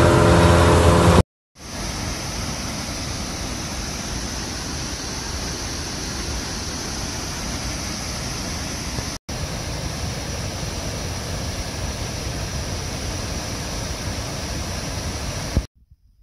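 A motorboat's outboard engine running at speed, cut off about a second in. After a brief gap comes the steady rush of a large waterfall pouring into a gorge, with a short break around the middle, which stops abruptly near the end.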